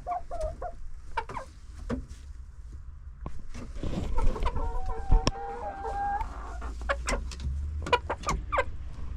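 Backyard chickens clucking, with one longer drawn-out call about four seconds in that lasts around two seconds. A few sharp clicks and knocks come in between.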